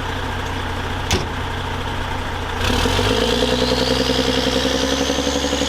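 Vehicle engine idling steadily, then revving up about two and a half seconds in, with a whine that rises in pitch as it gets louder.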